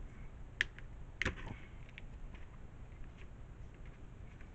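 Hard plastic storage cabinet parts handled and fitted by hand: two sharp clicks a little over half a second apart about a second in, then a few faint ticks.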